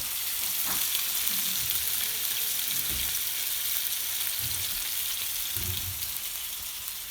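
Salmon frying in a skillet: a steady sizzle that eases slightly near the end.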